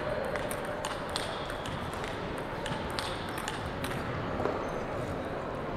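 Table tennis balls clicking: scattered, irregular sharp taps of balls striking tables and paddles, one or two a second, over a steady hall background.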